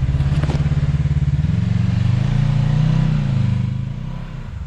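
Side-by-side UTV engine revving under load on a rock climb: the revs rise for a couple of seconds, then ease off. There is a brief clack near the start.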